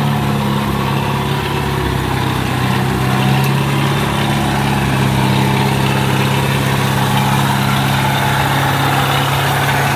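Kubota DC70 combine harvester's engine running steadily at an even speed.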